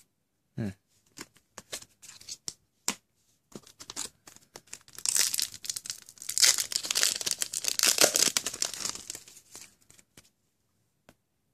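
A trading-card booster pack's wrapper crinkling and tearing open, with a few light clicks and taps before it. The tearing comes about halfway in and lasts several seconds.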